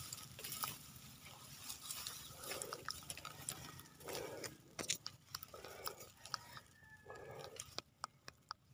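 Faint rustling and crackling of dry reed stalks with scattered small clicks, as a shot fish is pulled up through the reeds. A short, soft, low muffled sound comes about every second and a half.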